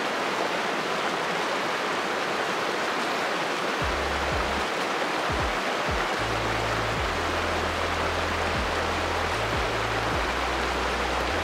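Steady rush of flowing stream water, with background music coming in about four seconds in, carried by low bass notes.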